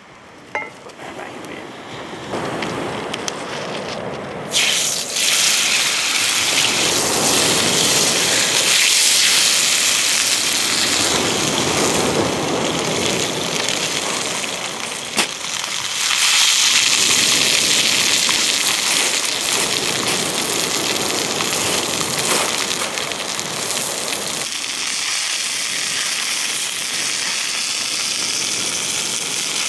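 Rump steak sizzling in a hot frying pan over beach-fire embers, the loud hissing sizzle starting suddenly about four seconds in as the meat goes into the pan, then holding steady with a sharp click midway.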